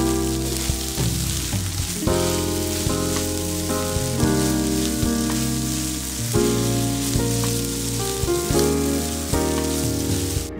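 Fried rice sizzling in a nonstick wok as it is stir-fried with a spatula, under background music of held notes that change every second or so.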